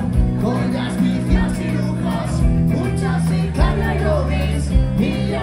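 Live band playing a rumba-style song, with a male lead vocal singing into a microphone over the band and a low drum thump about every second.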